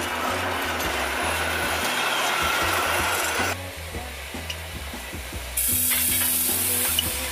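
Background music with a steady bass line over the hissing rush of a passing train. The sound changes abruptly twice. In the last stretch a high steam hiss from a steam tank locomotive stands out.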